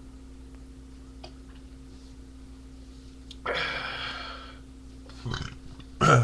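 A man burping after drinking beer: a breathy exhale a little past halfway, then two short, rough burps near the end, the second the loudest, over a steady low electrical hum.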